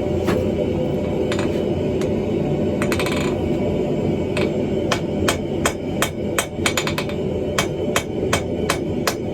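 Hammer blows on hot steel while forging a hammer eye drift. A few scattered strikes come first, with a short quick rattle of taps about three seconds in. From about five seconds in the blows are steady at about three a second, over a constant background roar.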